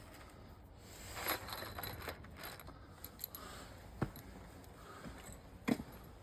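Light clinks and rattles of small metal screws and fittings being picked out and handled, with sharper single clicks about four seconds in and again near the end.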